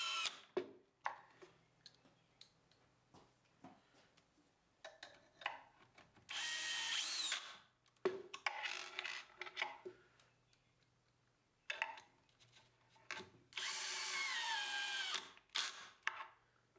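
Cordless drill driving screws to fix drawer slides inside a melamine cabinet: several short runs of the motor, two of them longer, the whine falling in pitch within each run, with light clicks and handling between.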